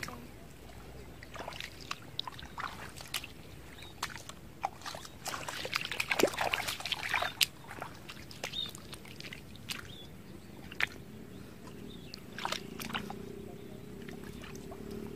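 Splashing and sloshing in shallow, muddy paddy water as people wade through it, in scattered sharp splashes that bunch up about six seconds in. A faint steady low hum sets in near the end.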